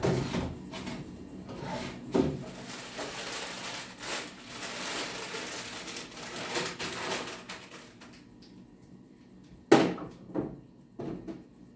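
Packets, jars and cans being put onto wooden pantry shelves: rustling and scattered light knocks and clinks, with one sharp knock near the end.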